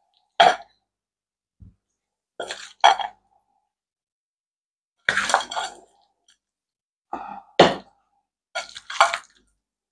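A serving utensil scraping and clinking against ceramic plates as potato salad is scooped and set down, in about five short bursts with silence between.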